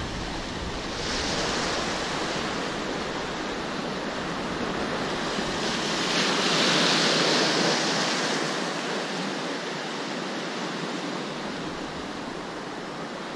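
Sea surf washing in, a steady rushing that swells briefly about a second in and more strongly in the middle before easing off.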